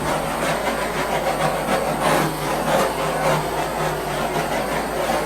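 Handheld torch flame burning with a steady, loud hiss.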